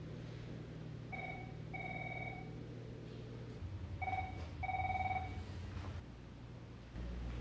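Electronic telephone ringing: two double rings, each a short tone followed by a longer one, a high tone sounding over a lower one. A low steady hum lies underneath.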